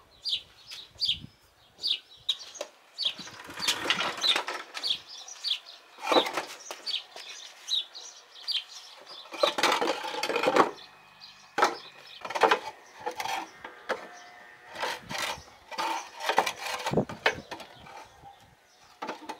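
Wooden blocks of a homemade trestle jack knocking and scraping as they are handled and set under the wheel of a small tractor, with the loudest scraping about halfway through. A bird chirps repeatedly through the first half.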